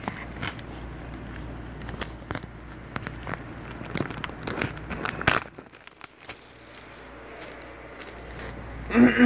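Newspaper pages rustling and crinkling as they are handled and turned, a string of short crackles with the loudest about five seconds in, then quieter.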